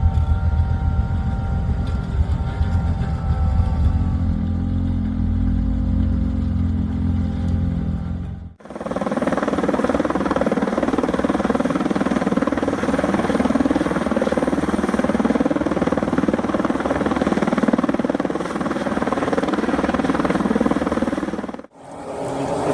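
Engines of snow-clearing vehicles running. A deep, steady engine rumble gives way at a sudden cut about eight and a half seconds in to a noisier, busier machine sound, and there is another short cut near the end.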